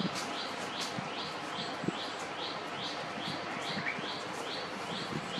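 A bird chirping over and over, short high chirps at an even pace of about three a second.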